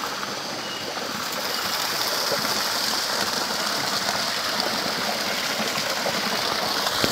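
Steady rush of running hot-spring water from the stream and falling spouts, an even hiss.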